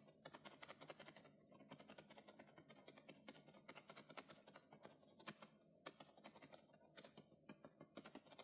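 Very faint, irregular rapid clicking and crackling, like light tapping on a keyboard: a sound effect standing in for a crawling bedbug.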